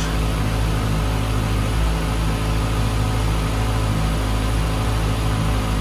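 Brand-new Kawasaki ZX-6R four-cylinder sport bike engine idling steadily on its stock exhaust, on its very first run.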